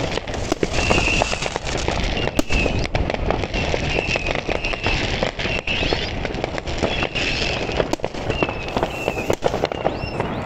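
Many fireworks going off across a town: a dense, unbroken run of bangs and firecracker cracks. A short high whistle comes and goes about once a second through it.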